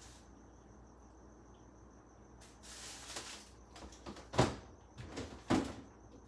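Items being moved around inside an open refrigerator: a stretch of rustling and handling, then two sharp knocks about a second apart as containers or shelves are bumped or set down.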